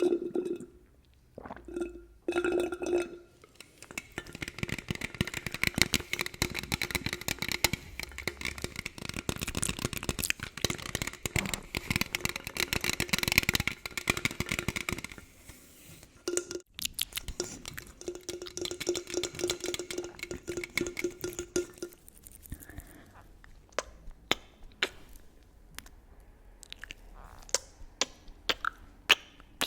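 ASMR sounds made on an aluminium drink can: dense crinkling and crackling through the first half, then sparser separate taps and clicks toward the end.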